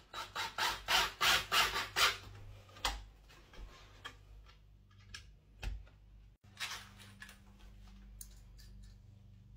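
Quick, even scraping strokes on a pine board, about four a second for two seconds, then a few scattered scrapes and a faint low hum.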